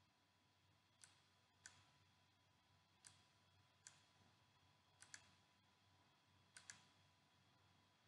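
Faint computer mouse clicks, about eight, unevenly spaced, with two quick pairs that sound like double-clicks, over a faint steady hum.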